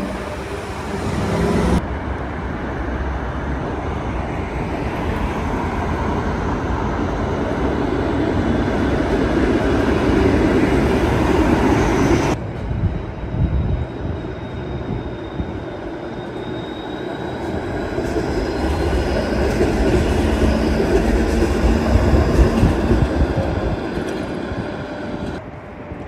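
TTC Flexity Outlook low-floor streetcars running on street track: steel wheels rumbling on the rails, swelling louder as a car approaches and passes, then fading. A faint whine drifts in the middle.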